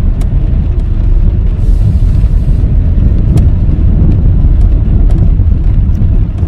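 Loud, steady low rumble of a vehicle ride over a bumpy surface, with a few sharp clicks.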